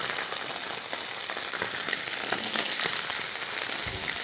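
Thin chicken breast fillets searing in hot oil in a stainless-steel frying pan: a steady, high sizzle with many small scattered crackles.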